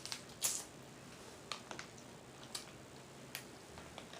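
Faint, scattered clicks and small cracks of snow crab leg shell being handled and picked apart, about half a dozen spread over a few seconds.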